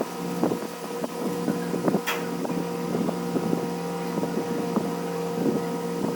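A steady mechanical hum with irregular metal clicks and knocks over it, typical of hand tools working on an engine during an overhaul.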